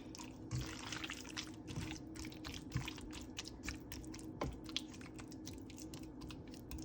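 Wet, sticky squelching and many small clicks from raw chicken pieces being worked by hand in a thick curd-and-spice marinade, over a steady low hum.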